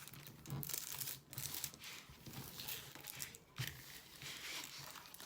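Plastic packaging crinkling and rustling as it is handled, in uneven swells with a few sharp crackles.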